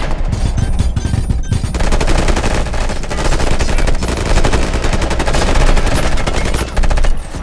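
Sustained rapid automatic fire from several assault rifles, with rounds hitting an armoured SUV. The shooting stops abruptly near the end.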